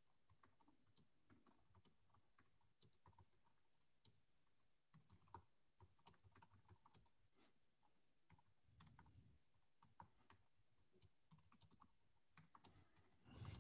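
Faint, irregular typing on a computer keyboard, heard through a video-call microphone.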